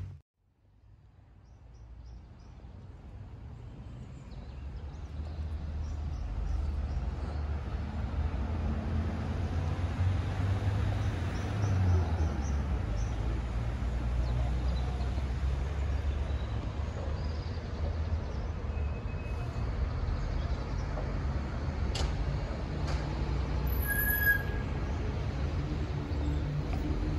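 Outdoor city ambience: a steady low rumble of distant traffic with faint bird chirps, fading in from silence over the first few seconds.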